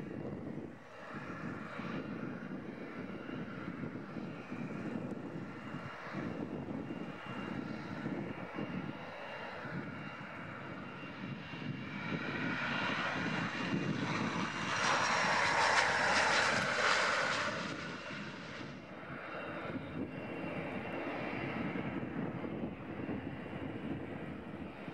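Airbus A321's CFM56 jet engines running at taxi power as the airliner taxis, a steady whine and rumble. A louder rush of jet noise swells and fades for a few seconds past the middle.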